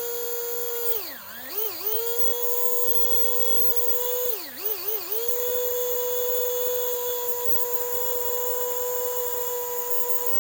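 Tyco 440x2 HO slot car motor running at 10 volts with a steady high whine. Its pitch dips and climbs back about a second in, and dips again with a couple of wobbles around four and a half seconds in, as the throttle is eased and reapplied. The motor's aftermarket bulkhead bushings are freshly broken in.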